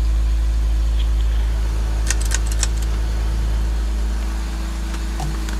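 BMW 325ci's 2.5-litre DOHC inline-six idling steadily, heard from inside the cabin, with its low hum changing about two-thirds of the way through. A few light clicks come about two seconds in.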